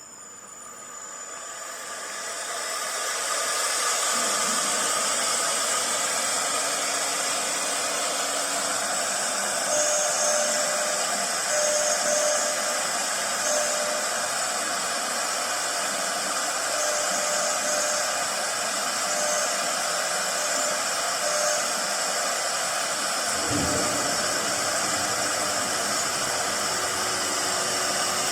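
Four-spindle CNC router starting its automatic job: the spindle winds up over the first few seconds to a steady high-pitched whine and runs at speed, with a brief low knock about three-quarters of the way in.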